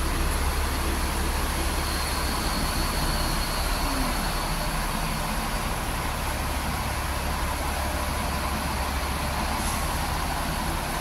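Steady low rumble and hiss of idling double-decker buses.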